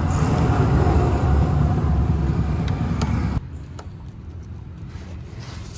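A motor vehicle's engine running with a loud, steady rumble that cuts off abruptly about three and a half seconds in, followed by a quieter background with a few faint clicks.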